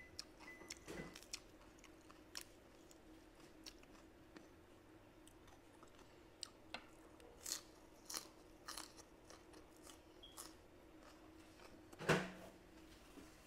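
Close-miked eating sounds: chewing and small mouth clicks, irregular and scattered, with a louder bite or mouth sound about twelve seconds in.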